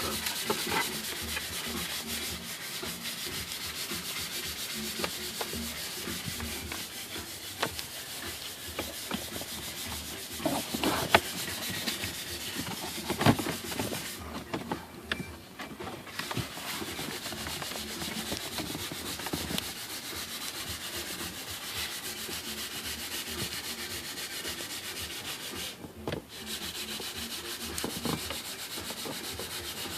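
Steady rubbing and scraping noise from hands working on the car's plastic interior trim during reassembly, with a few sharp plastic clicks and knocks. The rubbing breaks off briefly about halfway through.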